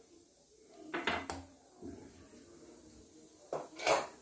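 Kitchenware clinking and knocking: a couple of short knocks about a second in and a louder pair near the end.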